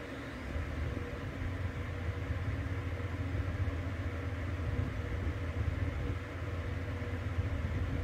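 Car driving at road speed, heard from inside the cabin: a steady low rumble of tyres on the road and the engine, which grows louder about half a second in, with a faint steady hum over it.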